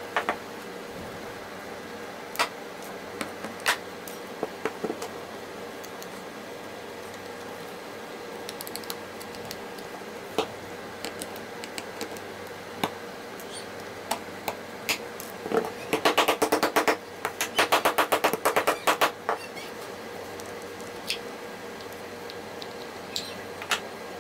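Small metal hand tools clicking and scraping against a paintbrush's metal ferrule as a screwdriver and pliers work out the small nails that hold it to the wooden handle. Scattered single clicks, with a rapid run of clicks lasting about four seconds in the middle.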